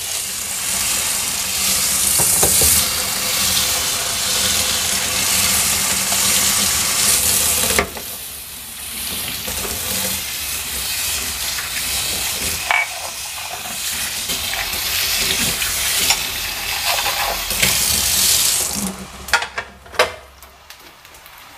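Water running from a kitchen tap into a stainless steel sink while dishes and drinking glasses are washed, with occasional knocks of the crockery. The rush of water drops abruptly to a lower level about eight seconds in and dies away near the end.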